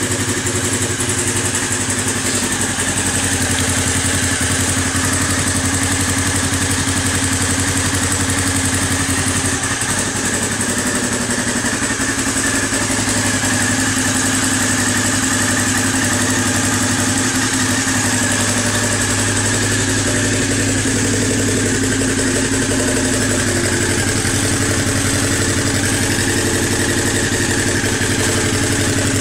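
Honda CB500's parallel-twin engine idling steadily through an IXIL Xtrem aftermarket silencer fitted with its dB-killer baffle. The engine is a freshly installed replacement on its first run.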